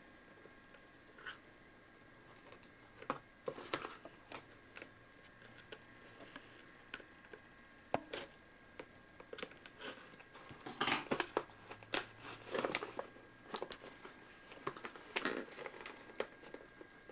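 Scissors snipping the packing tape on a tightly taped box and hands working the box open: scattered sharp snips and clicks, with louder bursts of crinkling and rustling about two-thirds through and again near the end.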